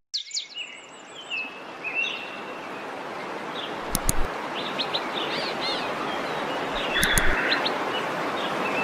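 Birds chirping and trilling over the steady rush of a waterfall, which fades in and grows louder over the first few seconds.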